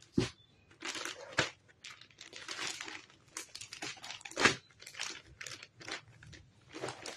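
Clear plastic packaging of boxed lawn suit sets crinkling as the packets are handled and laid down. It comes as irregular rustles, the sharpest about four and a half seconds in.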